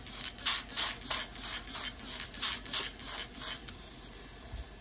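Trigger spray bottle misting water onto a scored sourdough loaf in a Dutch oven: a quick run of about a dozen short hissing squirts, about three a second, stopping about three and a half seconds in.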